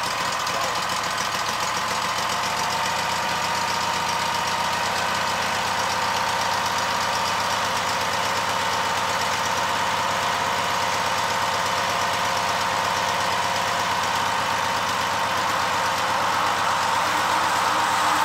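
Portable sawmill's engine running steadily as the mill is set to saw a cant into boards, with water dripping onto the blade. The sound grows slightly louder near the end.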